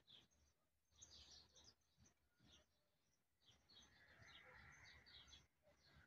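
Near silence with faint birdsong: scattered short chirps and calls of small birds.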